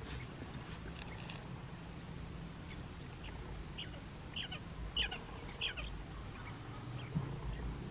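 Japanese (Coturnix) quail peeping: a scattered series of short, high, falling chirps, thickest around the middle, over a faint steady low hum.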